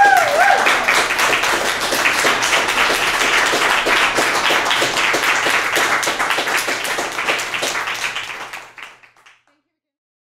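A live audience clapping and applauding, with a short cheer right at the start; the applause dies away after about nine seconds.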